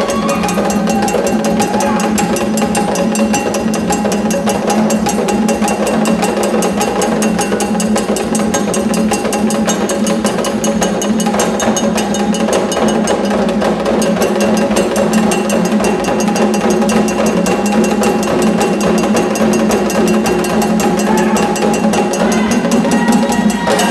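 Live Haitian drum ensemble playing a fast, driving dance rhythm: a dense, even stream of sharp hand-drum strikes over a steady ringing tone.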